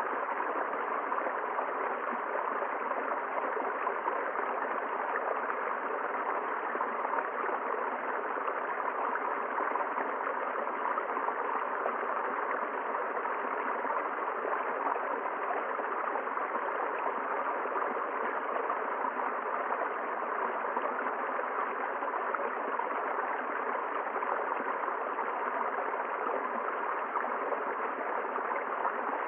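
River water flowing over rocks: a steady, even rush of running water with no change in level.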